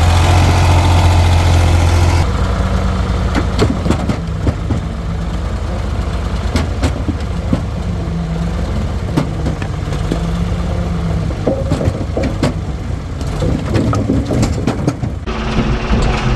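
Ford backhoe loader's engine running while split firewood tumbles from its bucket into a mini truck's metal bed, with many irregular knocks and clatters as the wood lands.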